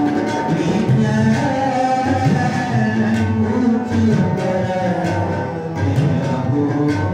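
Sikh kirtan: harmoniums playing sustained chords and melody while a man sings over them.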